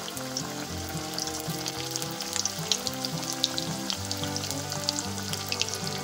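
Samosas deep-frying in hot oil in an iron karahi: a steady sizzle with frequent sharp crackling pops. Background music plays underneath.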